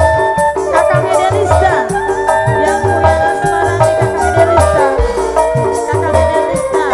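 Upbeat band music with a steady beat of low drum hits under held melodic tones, and a shaken rattle among the percussion.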